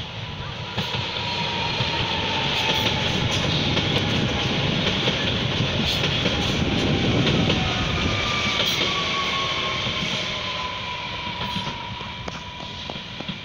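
Koleje Małopolskie electric multiple unit passing close by. Its running rumble swells to a peak about midway and then fades, with a thin whine that slowly falls in pitch and scattered clicks of the wheels on the rails.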